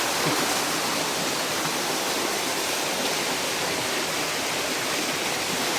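Water rushing in a stream or small waterfall: a steady, even hiss.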